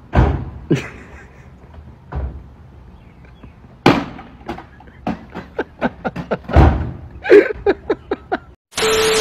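Repeated bangs and knocks of a man striking the cab and aluminium canopy of a ute: a few heavy thuds, then a quick run of sharper knocks and slams. Near the end comes a brief burst of steady hiss with a held tone.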